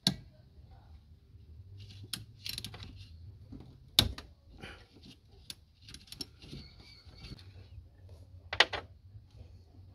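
Ratcheting spanner clicking and clinking on metal as it works a fitting on a diesel fuel filter housing, with scattered sharp metallic knocks. The loudest knocks come at the start, about four seconds in and near the end.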